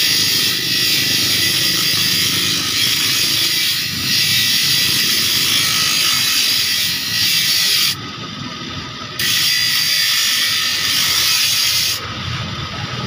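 Small bench grinding wheel grinding the steel teeth of a handsaw, a steady high hiss of metal on the abrasive wheel. The hiss breaks off for about a second some eight seconds in and again about a second before the end, leaving only the grinder motor's hum.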